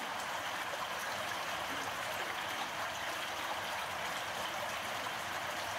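Steady rushing of water flowing through a culvert, an even hiss with no breaks.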